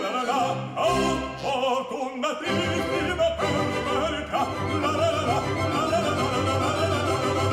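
Background music: an operatic voice singing over an orchestra with strings, continuous throughout.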